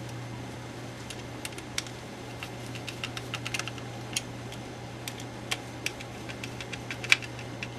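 Light, irregular clicking and tapping of small parts being fitted into a P90 box magazine's plastic housing, with one sharper click about seven seconds in. A steady low hum runs underneath.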